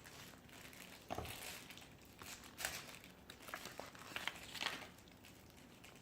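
Plastic blind-bag wrapper crinkling in irregular bursts as it is handled and opened by hand.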